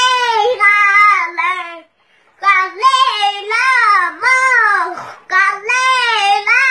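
A small child singing in long, arching phrases that slide up and down in pitch, with a short break about two seconds in.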